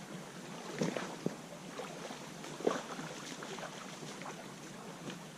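Swollen creek running steadily at a stream crossing, with a few short splashes about one second and about two and a half seconds in.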